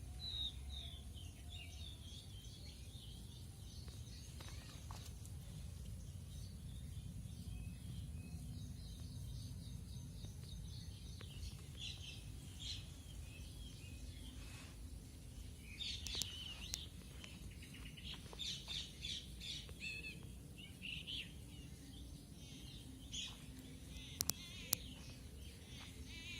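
Small birds chirping and calling in short, scattered bursts, busiest about two-thirds of the way through, over a steady low rumble. Two sharp clicks near the end.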